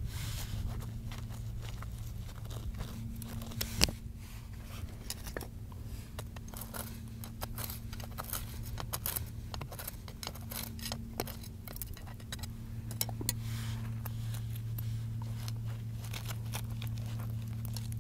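A thin metal rod poked into a small cavity in rock, scraping and clicking against the stone and the loose grit inside, with one sharp knock about four seconds in. A steady low hum runs underneath.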